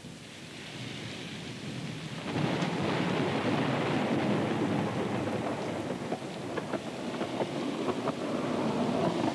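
Rain with rolling thunder, the rumble swelling about two seconds in and holding. A few sharp clicks sound over it in the last few seconds.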